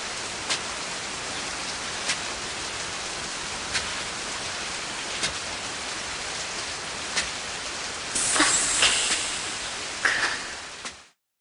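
Steady rain-like hiss with a sharp click every second or two. Brighter spattering sounds come about eight seconds in and again near ten seconds, then the hiss cuts off suddenly near the end.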